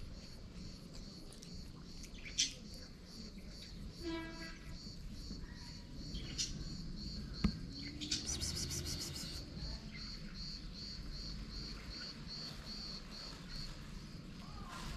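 An insect chirping steadily outdoors, about two even chirps a second, stopping shortly before the end. A couple of sharp clicks stand out as the loudest sounds, and a brief high trill comes about eight seconds in.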